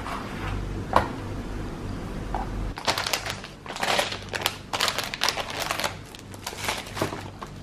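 Handling noise: a sharp click about a second in, then a run of irregular crinkling and rustling from about three seconds in to near the end, as of paper being handled.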